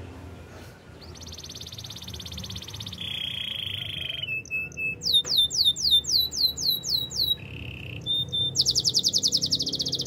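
White domestic canary singing a varied song of phrases: a fast high trill, a lower rolling trill, then a run of repeated downward-sweeping whistles at about four a second, and a very fast high trill near the end. A low steady hum runs underneath.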